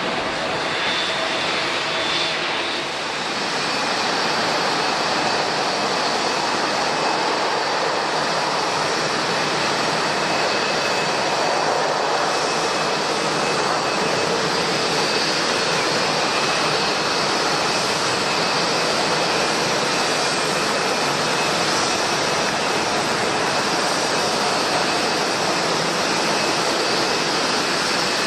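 Jet airliner engines running: a steady, dense noise with faint high whining tones, growing a little louder about three seconds in and then holding steady.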